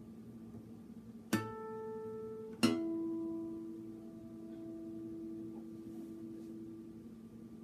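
Acoustic guitar strung with new D'Addario EXP19 strings, two single notes plucked a little over a second apart. The second, lower note rings and slowly fades.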